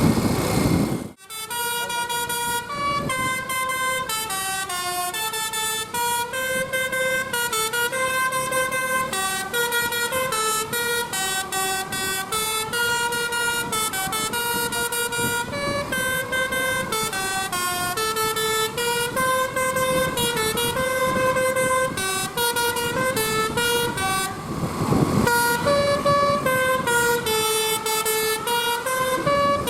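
A bus's Basuri telolet horn playing a long melody of stepping, held notes, starting about a second in, with a brief break of noise a few seconds before the end.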